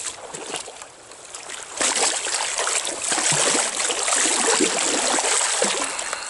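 Water splashing hard as a stringer of coho salmon is swished through a stream to rinse the fish. It starts about two seconds in, after a few smaller splashes.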